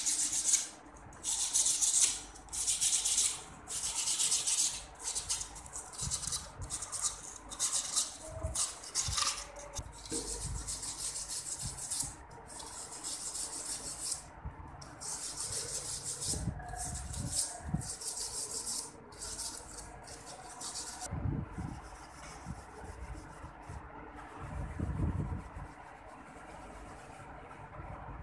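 A cloth rubbing and wiping over the steel surface of a large connecting rod: a run of rough, hissing strokes about once a second, turning softer in the last third, with a couple of dull knocks as the rod is handled.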